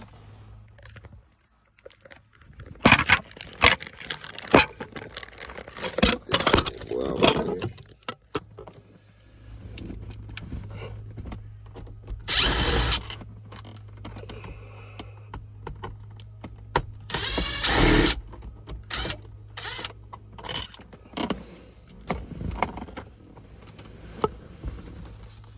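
Hand work on a car's overhead sunroof-switch console: irregular clicks, knocks and scrapes of a Torx screwdriver and plastic trim being handled, with two louder half-second scrapes. A steady low hum comes in about a third of the way through.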